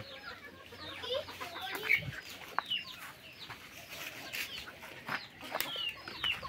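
Free-ranging laying hens clucking, with short scattered calls that rise and fall in pitch.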